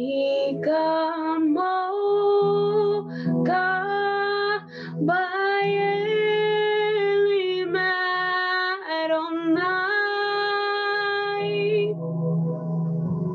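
A woman singing long, held notes over sustained keyboard chords, a slow worship song.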